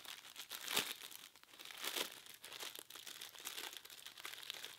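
Plastic packaging crinkling and rustling as an insole is handled and pulled from its wrapper, in irregular crackles with louder bursts about one and two seconds in.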